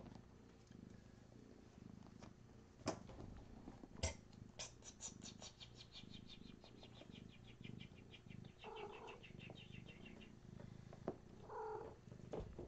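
A cat purring softly while being petted, with two short mews, one about two-thirds of the way through and one near the end. A couple of sharp knocks come early on, and a quick run of light ticks follows for several seconds.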